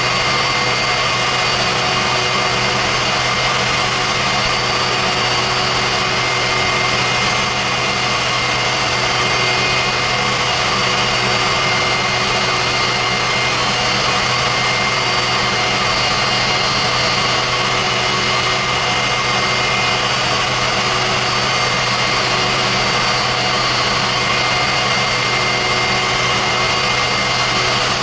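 Westinghouse J34 turbojet pushing a pontoon boat, running steadily at part throttle: a constant dense rush of jet noise with several steady high whining tones over it.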